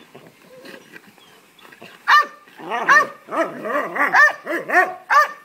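Belgian Malinois barking excitedly in a rapid run of short, high barks, about three a second, starting about two seconds in after a quieter stretch: demand barking, eager for the ball.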